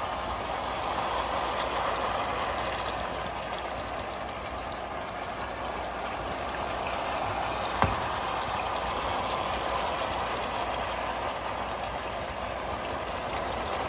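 Thick sauce bubbling steadily in a wide frying pan around a whole lamb leg, with sauce being spooned back over the meat. One sharp knock of the spoon against the pan about eight seconds in.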